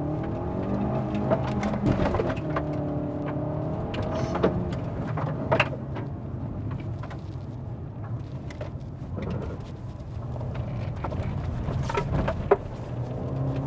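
Fiat Argo Trekking's 1.3 FireFly four-cylinder engine running under load on a dirt track, its pitch rising and easing with the throttle. Scattered sharp knocks come through a few times.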